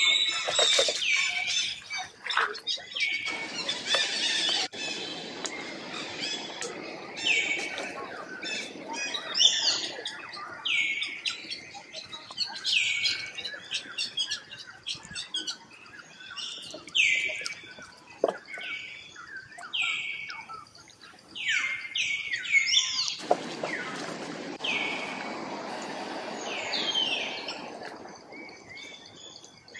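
Short, high-pitched animal calls repeat every second or so, each a quick curved squeal. Twice a rough rustle of dry leaves rises under them as the scuffle on the ground grows.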